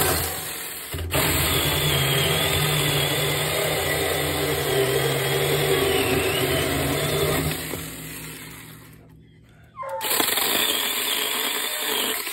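Mini 36-volt battery-powered chainsaw cutting through a small log: the electric motor's high whine with the chain rasping through the wood, dipping in pitch as the chain bites. It runs for about eight seconds and trails off, stops briefly, then runs again for about two seconds to finish the cut.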